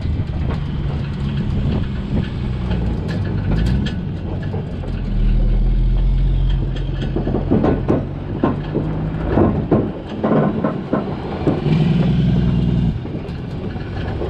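A Sterling tri-axle dump truck's diesel engine pulls a loaded tag trailer, its note rising and falling. The trailer deck and tie-down chains clank and rattle over the rough road, most heavily in the middle of the stretch.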